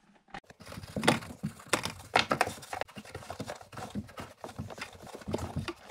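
Hand scrubbing the cleaner-soaked painted metal around a car's fuel pump access opening with a cloth: an irregular run of short scratchy rubbing strokes.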